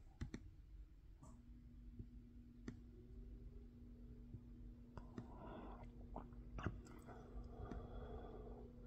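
Faint, scattered clicks from scrolling a document on a laptop, over a low steady hum that starts about a second in. A soft rustling noise comes in during the second half.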